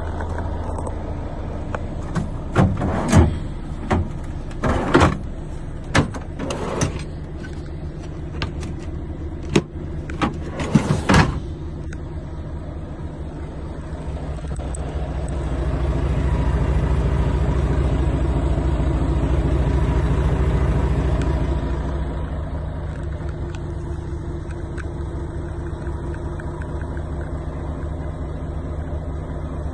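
Volvo FH 500's 13-litre straight-six diesel idling, heard inside the cab. A run of sharp knocks and clicks comes over the first dozen seconds, and the engine noise swells in the middle before settling back to a steady hum.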